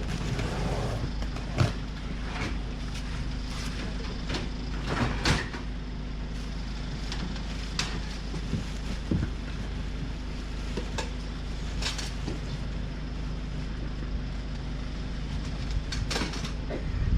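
A steady low mechanical hum, with scattered sharp knocks and clatter every few seconds.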